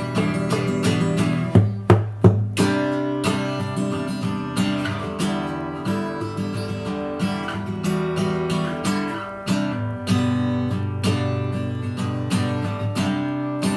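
Acoustic guitar with only five strings being strummed and picked by a beginner, with ringing chords and a few harder strums about two seconds in.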